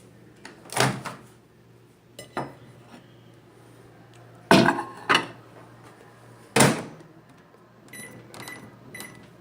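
Several sharp knocks and clatters as a plate and the microwave door are handled, then a run of short, high electronic beeps from a microwave keypad near the end as the cooking time is punched in.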